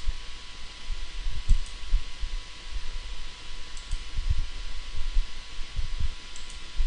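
Microphone background noise: a steady hiss with a faint steady whine, irregular low thumps, and a few faint short clicks.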